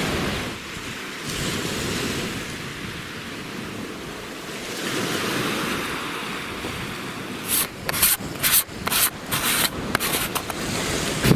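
Black Sea surf washing onto the shore in slow swells, with wind. In the last few seconds a quick run of sharp crunching noises sits over it.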